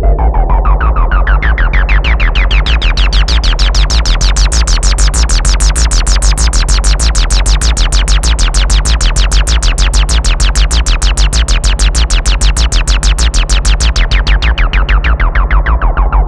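Behringer Model 15 analog modular synthesizer playing rapid, even repeating pulses over a steady deep bass tone. Its filter sweeps open over the first few seconds until the sound is bright, holds there, then closes again near the end.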